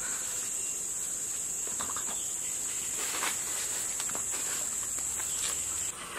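Steady, high-pitched drone of forest insects, with a few faint scuffs and taps of hands and feet on rock. The drone cuts off suddenly near the end.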